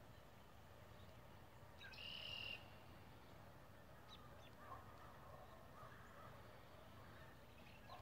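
Faint drumming of a distant woodpecker, with a brief buzzy high note about two seconds in and a few short bird chirps.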